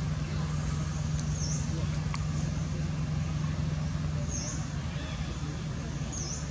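Steady low motor hum over background noise, easing a little about two-thirds through, with a few faint, short high chirps.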